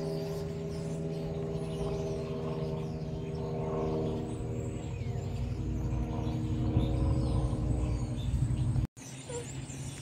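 A steady engine hum, giving way to a louder low rumble that builds over several seconds, with birds chirping faintly. The sound cuts off abruptly about nine seconds in and comes back quieter, with bird chirps more noticeable.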